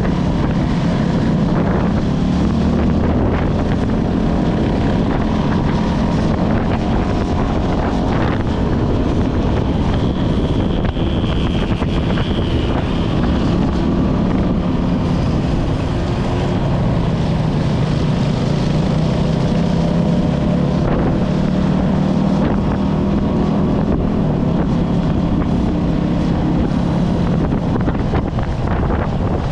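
Motorcycle engine running steadily while riding, its pitch drifting a little, with heavy wind noise on the microphone.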